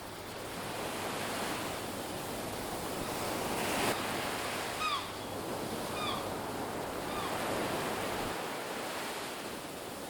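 Ocean surf washing steadily onto a beach, with one wave surging a little louder about four seconds in. A bird gives three or four short, falling calls between about five and seven seconds in.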